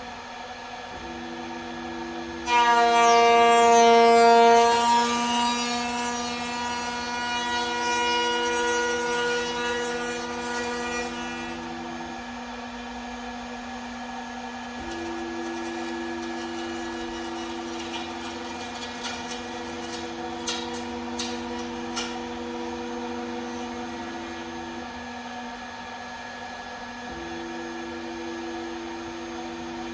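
CNC router running: a steady hum that drops out and comes back a couple of times, with a loud high-pitched whine that starts suddenly a couple of seconds in and fades over the next several seconds, and a few sharp clicks about twenty seconds in.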